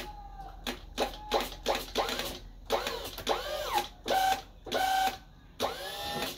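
Small electric motor of a remote-controlled crane jogged in a dozen or so short bursts, each a brief whine that rises and falls in pitch, while the up/down and in/out controls are tried out.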